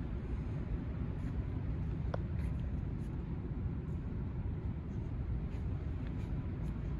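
Steady low background rumble of a large exhibition hall, with faint scattered clicks and one brief squeak about two seconds in.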